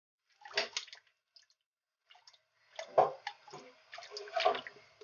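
Vinegar poured from a plastic bottle into a pot of water, splashing and trickling in two spells: briefly about half a second in, then again from about three seconds on.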